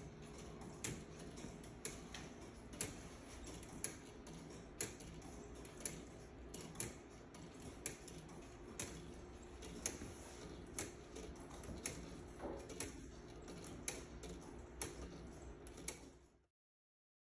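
Atomic Zeppelin wooden gear pendulum clock ticking steadily at about one tick a second: the wooden escapement clicking. A low room hum lies underneath, and the sound cuts off suddenly near the end.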